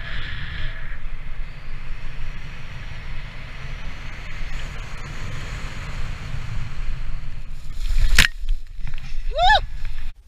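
Wind rushing over the microphone during a parachute descent under canopy. About eight seconds in there is a sharp thump as the jumper lands in tall weeds, then a short whooping shout.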